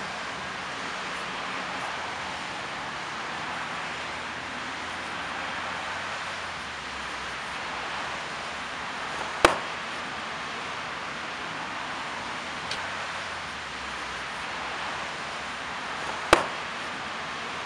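Steady hissing background noise, broken by two sharp clicks, one about halfway through and one near the end.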